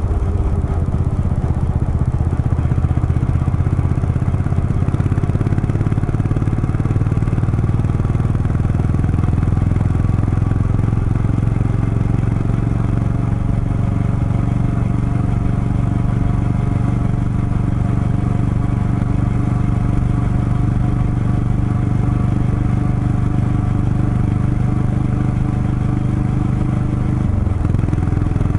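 Motorcycle engine running steadily at cruising speed, heard from the rider's seat with wind and road noise; the engine note changes briefly near the end.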